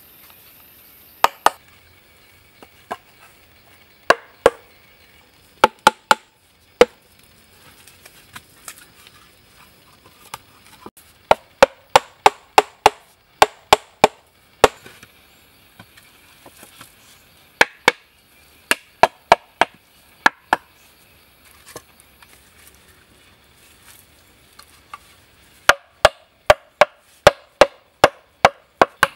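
Chopping green bamboo: sharp, hollow wooden knocks in runs of several quick blows, about two or three a second, with pauses between the runs.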